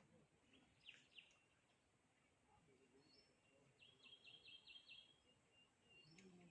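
Faint bird calls over a quiet outdoor hiss: a few short high chirps, and about four seconds in a quick trill of about six repeated notes.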